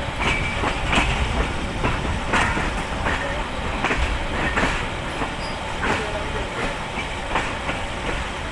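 Passenger train coach rolling slowly over the rails, heard from the coach's side: a steady low rumble with wheels clacking over rail joints at uneven intervals, about once a second, as the train runs into the station.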